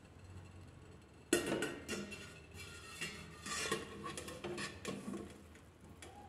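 Metal cookware being handled, clattering and clinking in a string of sharp knocks with some ringing. It starts about a second in after a quiet moment and dies down near the end.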